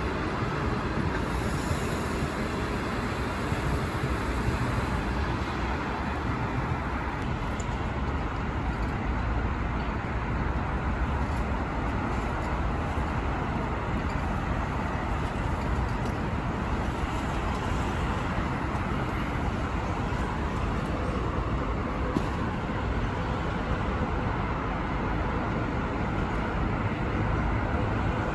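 Train running: a steady, unbroken rumble with no pauses.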